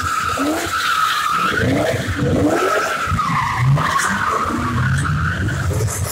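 Cars spinning donuts: tyres squealing in a continuous wavering screech while the V8 engines rev up again and again.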